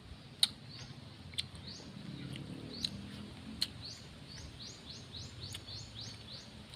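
A bird calling outdoors in a quick series of short high chirps, about three a second, strongest over the second half, with a few sharp clicks in the first half.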